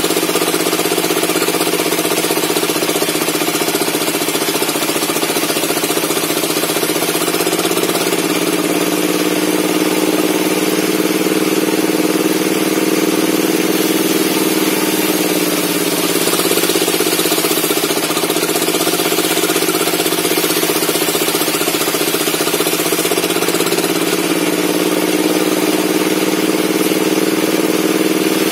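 Bench circular saw running steadily while cutting log offcuts, its hum sagging in pitch and recovering a few times as the blade takes the load of the cut.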